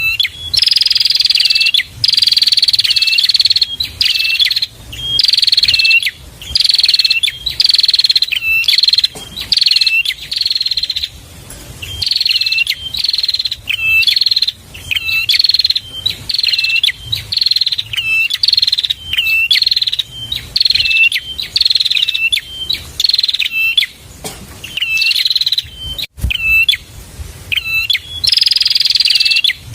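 Prenjak (prinia) song: loud, fast phrases repeated about once a second, each a dense high buzzy trill that falls slightly in pitch, with short hooked chirps between them and abrupt breaks.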